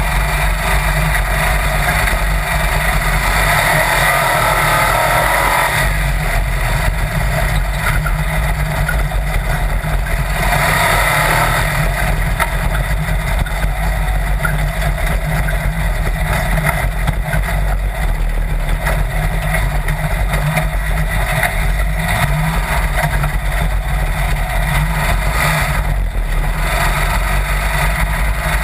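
Sand rail dune buggy's engine running steadily as it drives across the sand, with the engine note swelling twice, about four and eleven seconds in. There is wind noise on the microphone of the open cage.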